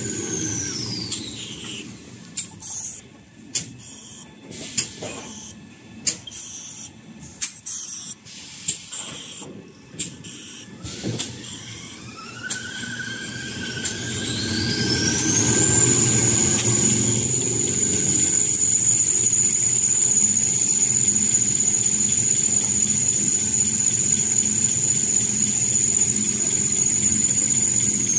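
Toilet paper and kitchen towel machine slowing down, its high drive whine falling away in the first couple of seconds, then a string of sharp clacks. About eleven seconds in it speeds up again with a rising whine that levels off at a steady high pitch over the hum of the rollers.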